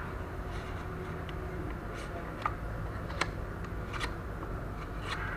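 Small plastic packet crinkling and crackling as it is handled and worked open by hand, a few sharp crackles spread over a few seconds, over a steady low background hum.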